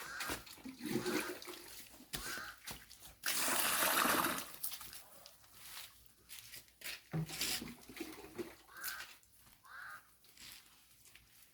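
Water poured out of a container onto the ground: a rushing splash lasting about a second and a half, starting about three seconds in.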